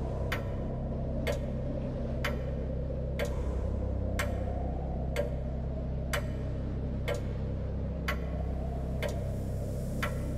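Sharp, clock-like ticks at an even pace of about one a second, over a steady low drone in the film's soundtrack.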